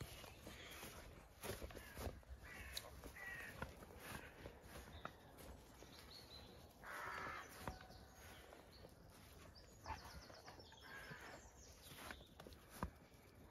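Faint outdoor sound with a few short animal calls, the loudest about seven seconds in, and scattered light clicks and rustles.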